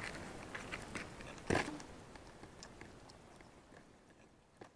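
Scattered crunching and clicking of handling noise on loose gravel, with one louder knock about a second and a half in as the FPV drone is set down on the stony ground.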